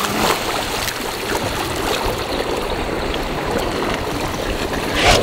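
Swimming-pool water churning and lapping in the wake of a racing dive, a steady wash of water noise, with a sharper splash near the end.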